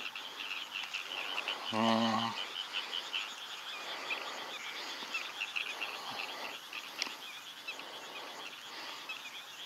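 Dense, steady chorus of high, rapid chirping calls from small night creatures, frogs or insects, with a short low hummed voice sound about two seconds in.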